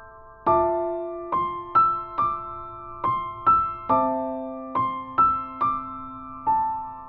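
Background music: a gentle solo piano playing a slow melody over held chords.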